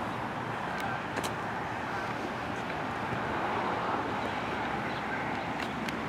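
Steady outdoor background hum of distant road traffic, with a few faint clicks.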